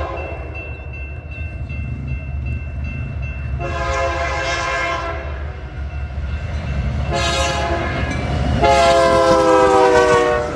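Air horn of a BNSF freight train's lead GE C44-9W locomotive sounded for a grade crossing: three blasts, the last the longest and loudest, its pitch dropping slightly as the locomotive passes. Under it the steady rumble of the approaching diesel locomotives.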